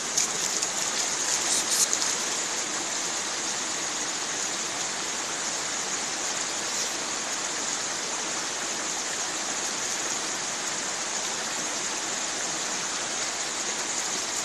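Shallow mountain river running over rocks, a steady hiss of flowing water, with a few short knocks in the first two seconds.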